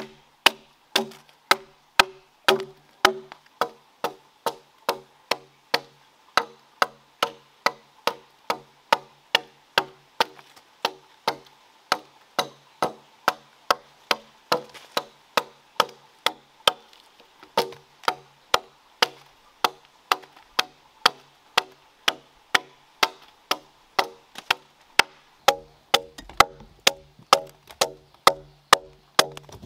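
A steel blade chopping into a log, about two strikes a second in a steady rhythm, each knock followed by a short woody ring.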